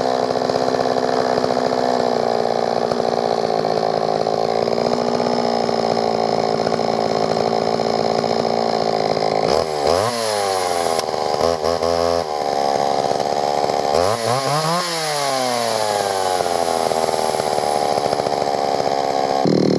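Solo 616 VA two-stroke chainsaw running steadily at speed. About ten seconds in, and again about fifteen seconds in, the engine speed drops sharply and then climbs back up.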